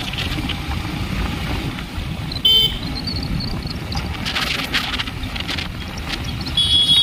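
A motorcycle running along a town road, a steady low rumble of engine and road noise, with two short high-pitched horn beeps, about two and a half seconds in and again near the end.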